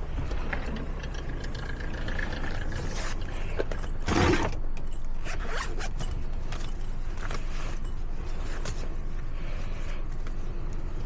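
Lishi FO38 pick working inside a Ford lock cylinder: small metallic scrapes and clicks, with one louder scrape about four seconds in, over a steady low hum.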